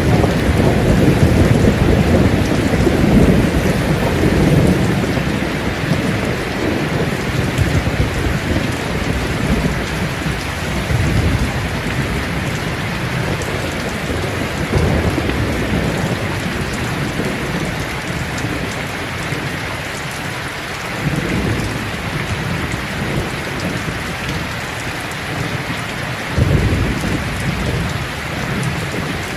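Steady rain falling on leaves, with low thunder rumbling under it: heaviest over the first few seconds, easing off, then a fresh roll starting suddenly near the end.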